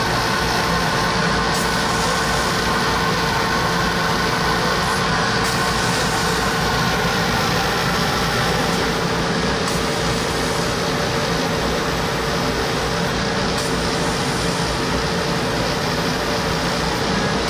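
Laser cutter running steadily while it cuts a clear acrylic plate: an even, unbroken mechanical whir with a steady hum through it.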